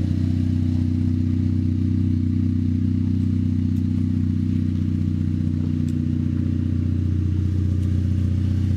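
9th-generation Honda Civic Si's 2.4-litre four-cylinder idling steadily, its header joint freshly resealed with a new gasket and exhaust sealer, so it leaks much less than before.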